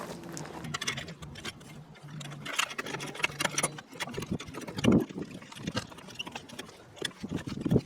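Car jack being worked to lift a car: a string of uneven clicks and knocks from the jack's mechanism as the car rises, with a louder knock about five seconds in. A low steady hum sounds for the first few seconds.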